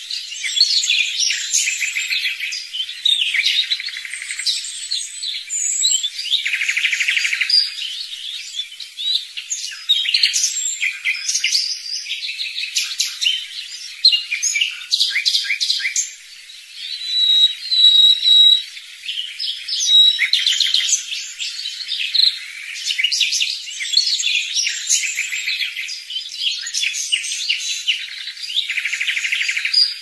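Songbirds singing together, a dense chorus of chirps, rapid trills and whistles at several pitches. A clear held whistled note stands out about halfway through.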